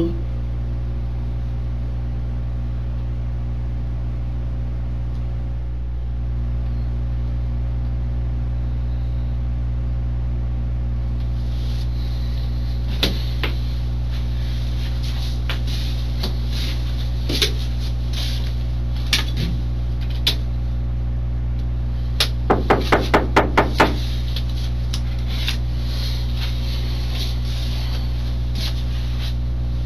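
Steady low hum of the interrogation-room recording, with scattered knocks and shuffles from about halfway as a man gets up and moves about. About two-thirds of the way in comes a quick run of about eight knocks, a man rapping on the door.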